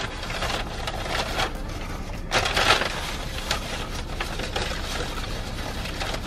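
Close-up chewing of a mouthful of Impossible Whopper with cheese: soft, wet crunching of bun, lettuce and patty with small mouth clicks. There is a louder stretch about two and a half seconds in, over a low steady hum.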